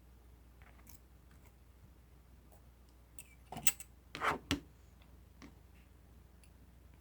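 Slime being handled: a quick cluster of short sticky clicks and squelches about three and a half to four and a half seconds in, with a few faint ticks either side.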